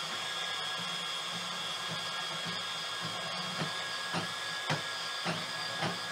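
Milwaukee M18 Fuel Deepcut cordless bandsaw running at its top speed setting, its 8/10-tooth thick-metal blade cutting through a 2-inch 6061 aluminum tube with a steady whine. In the second half a sharp click comes about every half second, five times.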